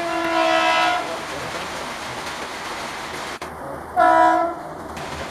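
Electric locomotive's air horn sounding two single-pitch blasts as the train approaches: one of about a second at the start, another a little shorter about four seconds in.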